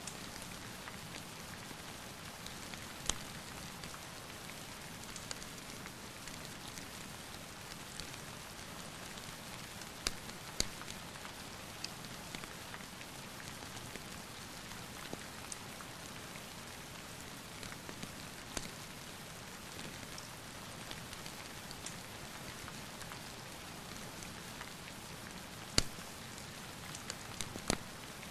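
Steady rain falling, with scattered sharp pops and crackles from a wood fire in a fireplace, a few louder snaps among them.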